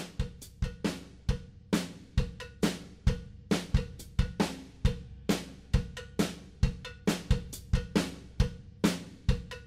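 Rock backing music led by a drum kit keeping a steady beat on snare, bass drum and hi-hat.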